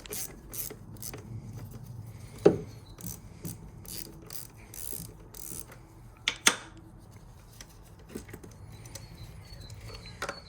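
Ratchet wrench with a 10 mm socket clicking in short bursts while the positive battery terminal's nut is undone. Two sharp metal knocks come about two and a half and about six and a half seconds in.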